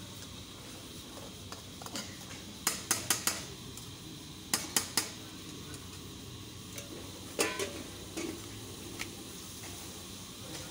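A wooden rolling pin rolls chapati dough on a wooden board, clicking and knocking in short quick runs. The loudest run is four clicks about three seconds in, with more runs near the middle. Under it runs a steady hiss from the chapati pan on the gas burner.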